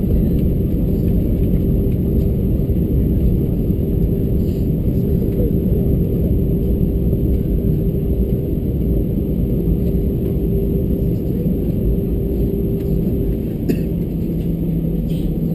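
Steady low rumble of an Airbus A320-214's CFM56 jet engines and airflow, heard inside the passenger cabin, with a held hum over it. Near the end a click, and the hum drops to a lower pitch.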